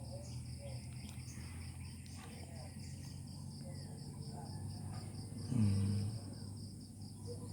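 A cricket chirping in a steady, high pulsed trill of about six pulses a second, over a low steady hum.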